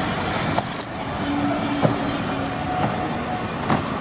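Railway passenger coaches rolling past: a steady rumble and rush of wheels on rails, broken by three sharp knocks from the wheels, one about half a second in, one near two seconds and one near the end.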